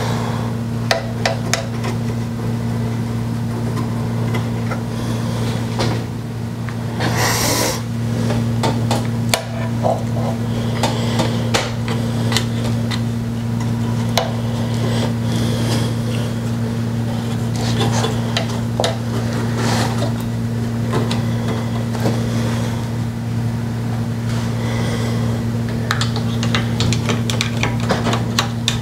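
Irregular small clicks and taps of plastic headlight-mechanism parts being handled while grease is brushed into the joints, with a short rustle about seven seconds in. A steady low hum runs underneath.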